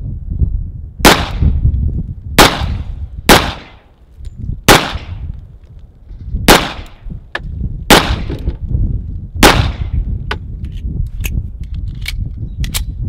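Pistol fired in a string of seven loud shots, spaced unevenly about one to two seconds apart, each with a short ringing tail; a few fainter shots follow near the end.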